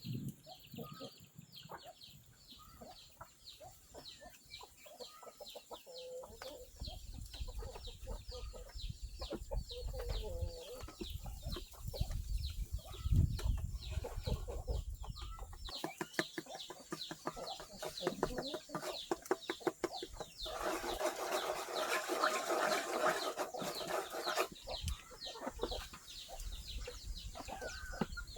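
Chickens clucking, with many short repeated calls and a louder, harsher stretch of about four seconds about twenty seconds in.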